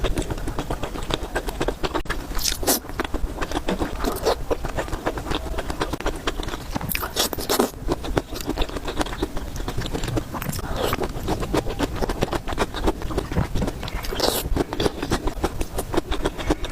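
Close-miked eating sounds of a person eating spicy noodles and dumplings: steady chewing with wet smacks and clicks, and a few louder, sharper strokes about three seconds in, around seven seconds in and near the end.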